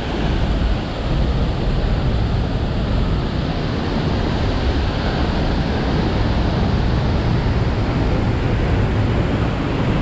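Waterfall rushing steadily into its plunge pool: a continuous, even wash of falling water.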